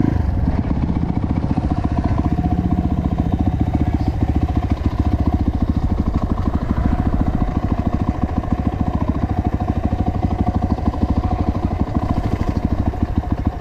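Dirt bike engine running through a new aftermarket exhaust, an even, rapid pulsing that holds steady as the bike rolls along a dirt trail.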